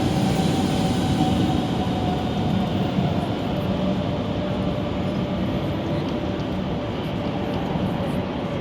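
Train moving past at a station platform: a steady running noise of wheels and machinery, with a thin tone that slowly drops in pitch.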